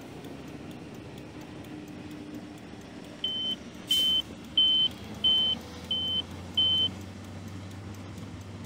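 A car driving, with steady road and engine noise heard from inside the cabin. In the middle come six short, high electronic beeps, evenly spaced about two-thirds of a second apart, and a single sharp click near the second beep.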